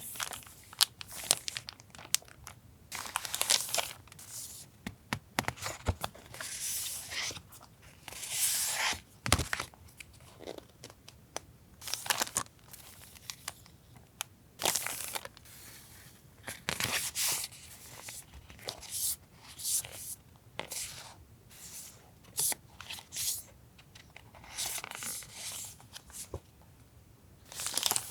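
Paper goods and their packaging being handled on a desk: irregular rustling, crinkling and short tearing or peeling sounds, broken by sharp little taps and clicks.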